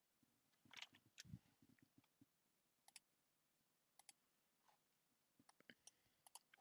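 Near silence with a few faint, scattered clicks and ticks, plus one soft low thud just over a second in.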